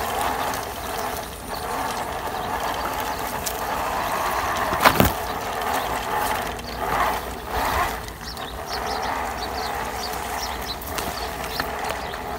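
Remote-control truck's electric motor and gearbox whirring steadily as it drives through grass and shallow mud, with scattered clicks and one sharp crack about five seconds in.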